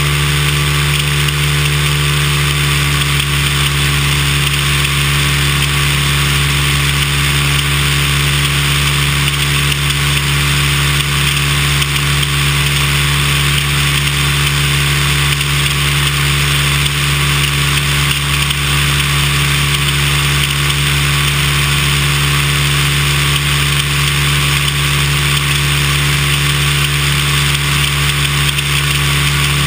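Cessna 172's piston engine and propeller running steadily in cruise flight: a constant deep hum with an even rush of airflow over it.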